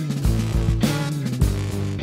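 Background music: a rock song, instrumental at this point, with a steady drum beat.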